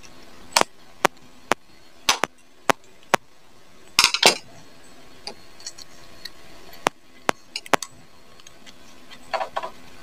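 Sharp, irregular metal clicks and taps of a screwdriver against a hair clipper's steel blades and blade screws as the blades are fitted and the screws turned, with a small cluster about four seconds in and a few more near the end.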